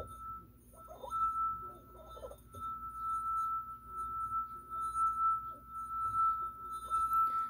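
Stemware wine glass, partly filled with water, singing as a wet fingertip is rubbed around its rim: one steady ringing tone, faint at first and fuller from about a second in, rising and falling in loudness with the finger's strokes. The glass is resonating at its own natural frequency.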